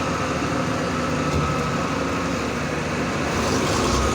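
Heavy machine engine running steadily, a constant drone with a thin steady whine above it.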